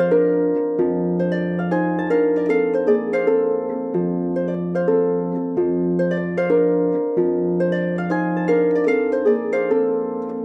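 Intro theme music: a quick melody of plucked string notes, each ringing and fading, over held low bass notes.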